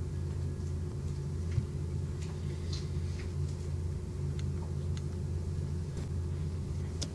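Steady low background hum with a few faint scattered ticks.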